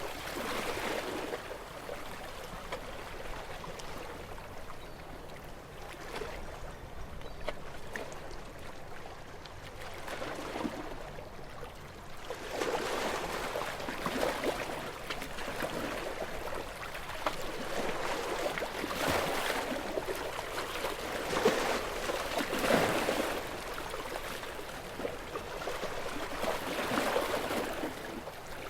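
Gentle waves washing onto a beach, with small waves breaking and running up the shore in soft surges every few seconds. The first part is calmer; from about halfway through the surges come more often and a little louder.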